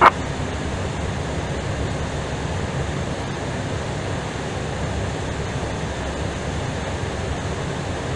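Steady low rumbling cabin noise of an Airbus A320ceo taxiing, with one brief sharp click right at the start.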